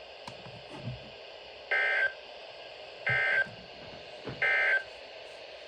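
Three short, identical bursts of warbling digital data tones from a NOAA Weather Radio broadcast, about 1.4 s apart. They are the SAME end-of-message code that closes an alert.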